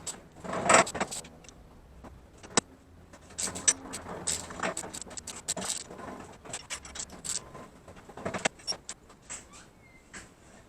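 Irregular clinks and knocks of metal parts and tools being handled, with the loudest clank a little under a second in.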